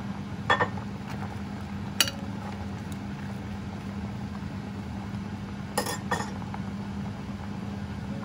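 Kitchenware clinking against a cooking pot a few times: once about half a second in, once at about two seconds, and a quick pair near six seconds. A steady low hum runs underneath.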